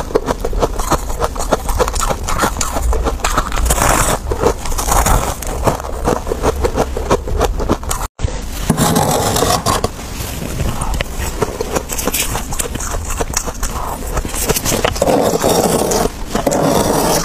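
Close-miked crunching of freezer frost being chewed: a dense run of crisp crackling crunches, broken by a short cut about eight seconds in. Near the end, a metal spoon scrapes into the frost layer of the freezer.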